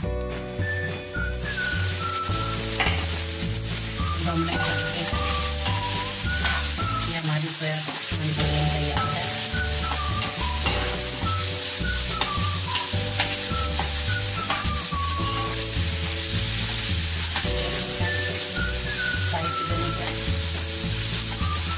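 Soya chunks in sauce sizzling in a frying pan while being stirred and tossed with a spatula, a steady hiss. Background music with a bass line and a melody plays over it.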